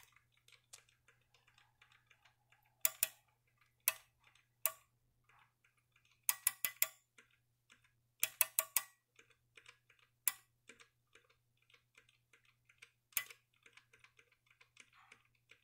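Small relays on a home-built board that replaces the rotary relay in an Icom IC-720A's low-pass filter, clicking faintly as bands are switched. The clicks come singly and in quick runs of three or four, at irregular gaps, with a faint steady hum underneath.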